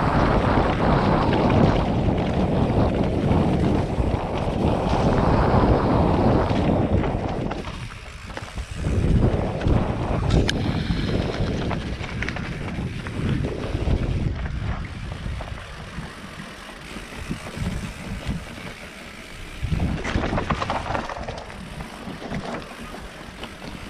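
Mountain bike descending a rough dirt trail, its tyres rumbling and the bike rattling over roots and rocks, with wind buffeting the helmet camera's microphone. Loudest for the first seven seconds or so, then easing with surges, one about twenty seconds in.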